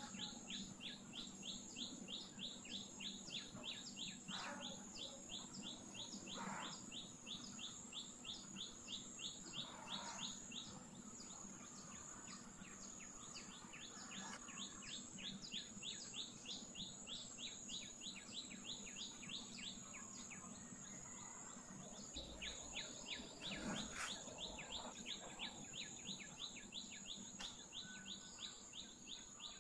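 Faint, rapid chirping: short high chirps repeated evenly about three to four times a second, with a steady high whine and a low hum beneath.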